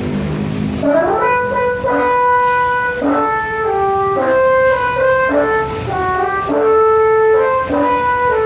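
Bus 'telolet' horn, a set of multi-tone air horns, playing a tune of held notes that step from one pitch to the next about every half second to a second, with a rising swoop about a second in.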